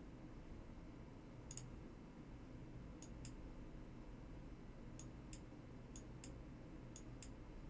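Faint computer mouse clicks, about nine of them, several in quick pairs, over a low steady room hum.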